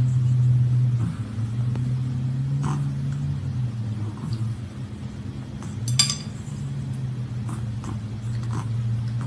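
Wooden chopsticks clicking and tapping against a ceramic plate now and then, one sharper click about six seconds in, over a steady low hum.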